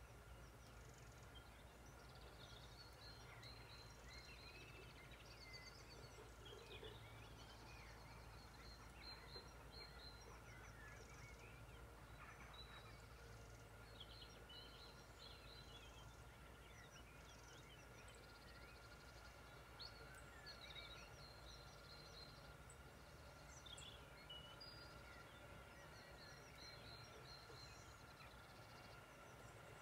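Faint birdsong from several birds in the evening chorus: many short chirps and trills throughout, over a low steady hum.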